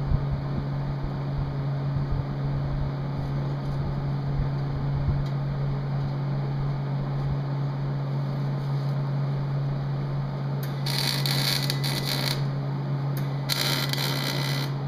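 Steady low motor hum, with two bursts of metal rattling and scraping near the end as a sheet-tin smoke shelf is worked into the steel hood of a coal forge.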